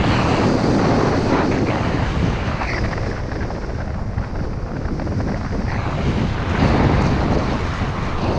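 Wind rushing over the camera's microphone while skiing down a groomed run, with the hiss and scrape of skis on packed snow swelling through the turns.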